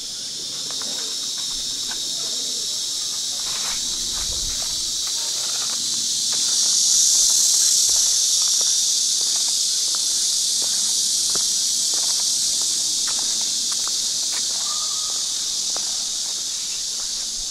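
A loud, steady chorus of insects buzzing, high-pitched, swelling to a peak about seven seconds in and then easing off slowly.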